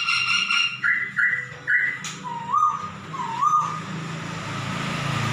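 Caged poksay (laughingthrush) calling: a held note with overtones, then three short clipped whistles and two rising whistles. From about four seconds in, a rushing noise builds up and covers the bird.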